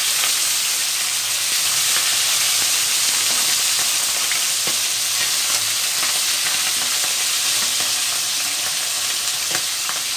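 Yellowfin tuna pieces, a split head among them, frying in hot oil in a wok: a steady loud sizzle with a few sharp crackles.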